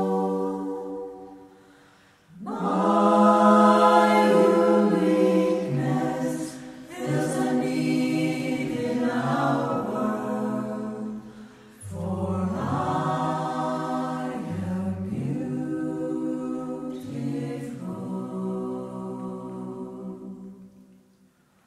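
Community choir singing unaccompanied in slow, sustained phrases. A held chord fades out at the start, new phrases enter about two and a half seconds in with short breaks between them, and the singing fades away near the end.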